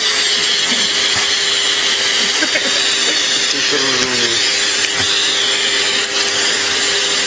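Vacuum cleaner running steadily, a constant motor whine over a loud airy hiss, its hose nozzle sucking at a cat's fur. A short vocal sound comes about halfway through.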